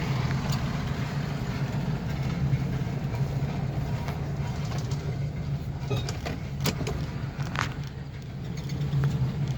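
2004 Ford E350 van's engine idling steadily, freshly started after a hard start, with a few light clicks.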